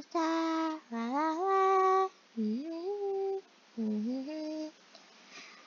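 A person humming a short tune in four phrases, most sliding up in pitch into a held note.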